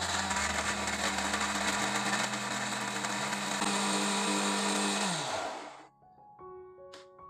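Small electric blender running, its blades grinding chilies and garlic into a wet paste with a steady motor hum and whirring. About five seconds in the motor winds down and stops, leaving soft background music.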